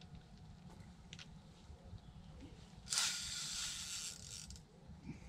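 A fishing reel ratcheting in one continuous buzz for about a second and a half, starting about three seconds in, while a hooked fish is being played.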